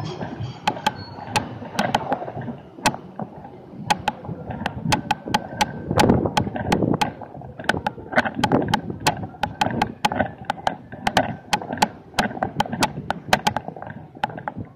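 Street noise crossed by many sharp, irregular clicks and taps, several a second.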